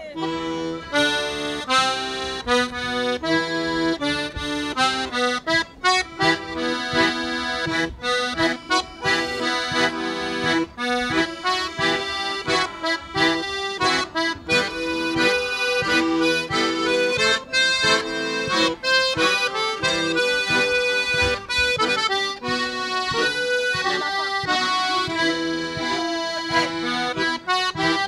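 An ensemble of several accordions playing a tune: held chords underneath and a melody of quick, short notes on top, continuing without a break.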